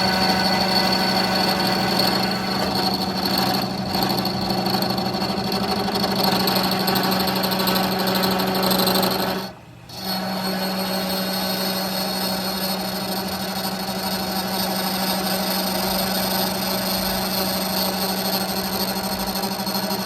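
A power tool running steadily with a constant motor hum; it cuts out for about half a second near the middle, then runs on at the same pitch.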